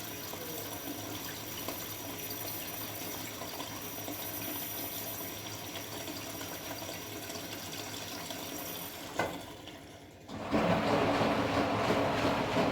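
Candy Formula Inox P 7.71X washing machine taking in water through its inlet valve, a steady rush of filling water. About nine seconds in the valve shuts off with a click, and about a second later the motor starts turning the drum, a louder tumbling sound as the wash begins.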